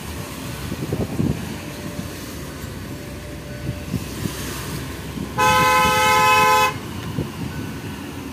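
Road traffic rumble from slow-moving cars. A little past the middle, a vehicle horn sounds once, held steady for about a second and a half, the loudest sound here.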